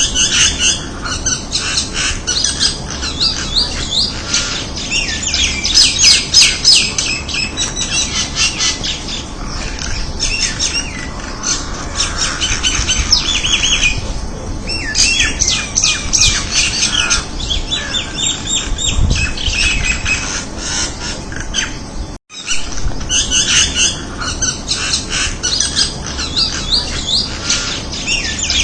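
Crested mynas calling: a dense, unbroken run of harsh squawks and chirps, many calls overlapping. The sound cuts out for an instant about three-quarters of the way through, then carries on the same.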